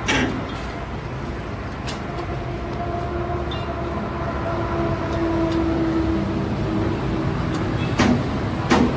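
Steady rumble of a running vehicle engine, with a humming tone that swells in the middle. Sharp clicks and knocks are heard at the start, a couple of times early on, and twice near the end.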